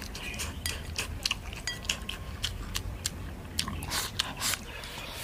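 People eating a meal of rice and meat: chewing and biting, with many short sharp clicks and taps scattered throughout.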